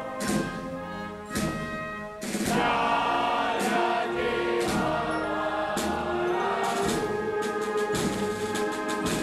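A choir sings a slow solemn hymn with an orchestral band accompanying, and drum strokes fall roughly once a second.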